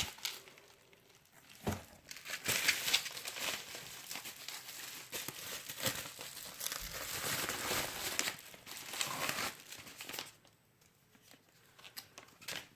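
Packaging crinkling and rustling as it is handled and torn open, for several seconds, then a few light handling clicks near the end.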